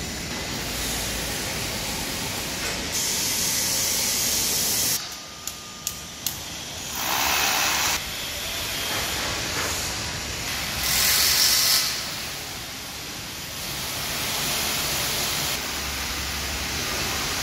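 Construction-site background noise: a steady hiss that swells louder for a second or two at a time, several times. About five seconds in the noise drops briefly and two sharp clicks sound.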